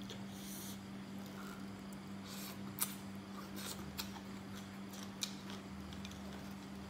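Faint close-up eating sounds: soft chewing and mouth noises with a few sharp clicks and crunches scattered through, over a steady low hum.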